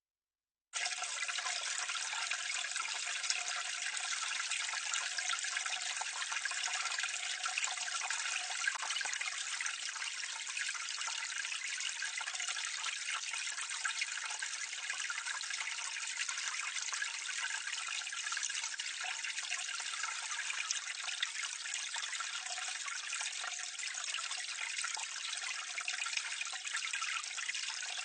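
Water pouring and splashing steadily into a drain, recorded close up: a constant, dense rush that starts just under a second in.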